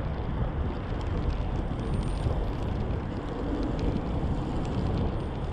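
Wind rushing over the microphone of a moving bicycle, a steady low rumbling noise with a few faint ticks.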